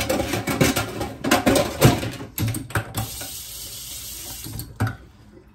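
Kitchen faucet running into the sink. For the first couple of seconds the water splashes unevenly, with clattering knocks among it, then it settles into a steadier stream. There is a single knock near the end.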